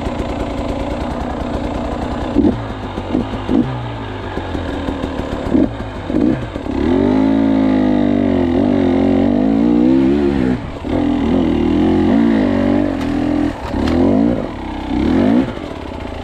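Off-road motorcycle engine idling, then blipped several times in quick succession, followed by a few seconds of hard revving under throttle that rises and falls in pitch, and two more short revs before it drops back toward idle.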